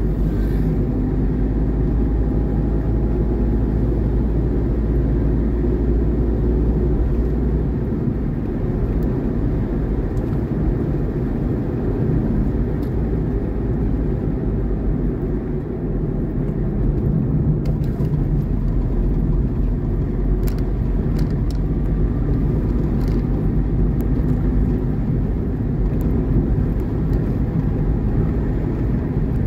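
Steady low rumble of a moving vehicle: engine and road noise heard while travelling along the road, with a few faint clicks now and then.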